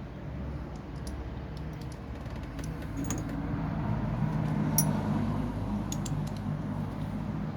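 Small metallic clicks and taps of hand tools and battery-terminal hardware being worked, irregular and spaced out, the sharpest about five seconds in, over a steady low background rumble.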